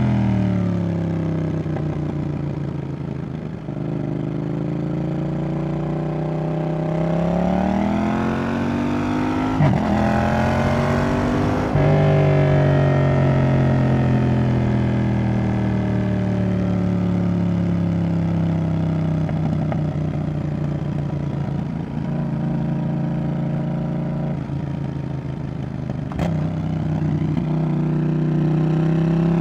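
Yamaha XSR700's 689 cc CP2 parallel-twin engine running through a Roadsitalia Double Fire aftermarket exhaust under way. The revs fall, climb hard twice a third of the way in with a brief drop between, then wind down slowly for a long stretch and rise again near the end. There is a sharp tick shortly before the end.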